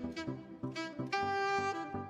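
Background music led by a saxophone, which holds one long note about a second in.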